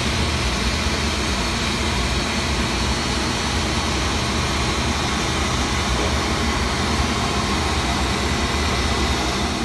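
Steady, loud drone of a ship's engine-room machinery: a deep hum with a hiss over it, unchanging.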